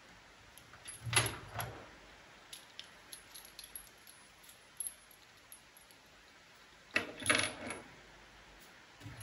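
Metal washing machine transport bolts clinking together as they are handled, in two clattering bursts, about a second in and again near seven seconds, with light ticks between.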